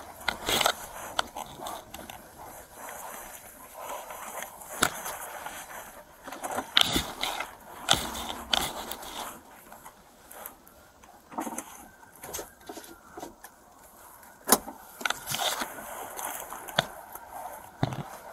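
Rustling and irregular sharp knocks of clothing and gear rubbing against a chest-worn body camera inside a police car, over a steady background noise.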